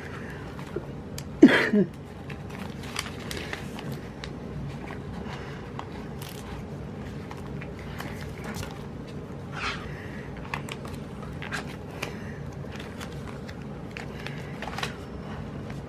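Light clicks and rustles of planner stickers and pages being handled, over a steady low hum. About a second and a half in comes one short, loud pitched cry that falls in pitch.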